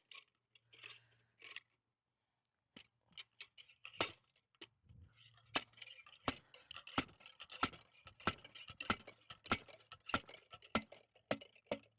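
Golf-green hole cutter being worked down into the turf by its lever handle: a run of sharp clicks and crunches, a few at first, then about two or three a second in the second half.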